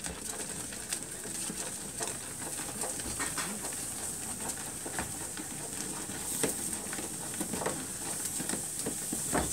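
Liquid nitrogen hissing and boiling off as it is poured from a dewar into a bowl of ice-cream mix, with a ladle stirring and knocking against the bowl in scattered clicks.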